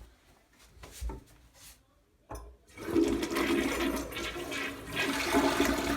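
Gerber Viper toilet flushing: a few soft knocks, then a short clunk a little over two seconds in, followed by the loud rush of water through its 3-inch flush valve as it takes a load of bread down.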